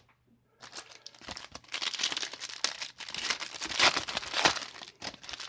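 Crinkling of a trading-card booster pack wrapper being handled and opened: an irregular run of sharp crackles that starts about half a second in and is loudest in the middle.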